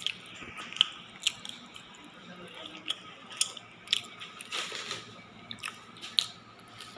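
Crusty kubos flatbread being torn and chewed close to the microphone: irregular sharp crackles and crunches over a low steady background.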